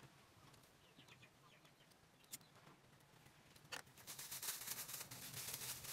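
A few faint clicks, then thin plastic bags crinkling and rustling as they are handled, starting about four seconds in.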